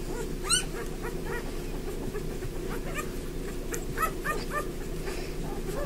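Newborn Bernese Mountain Dog puppies, five days old, squeaking and whimpering as they jostle to nurse: many short high squeaks, with one louder squeal about half a second in and a flurry of squeaks around four seconds in. A steady low hum runs underneath.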